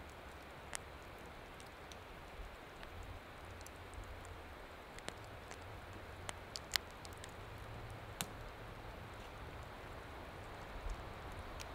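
Faint outdoor ambience: a steady soft hiss over a low rumble, broken by scattered sharp ticks at irregular intervals, the sharpest about seven and eight seconds in.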